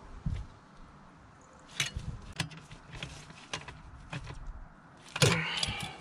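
Hand screwdriver and metal mounting bracket clicking and knocking as screws are driven into the side of a 2-DIN car radio in its plastic dash holder, with a louder clatter and scrape about five seconds in.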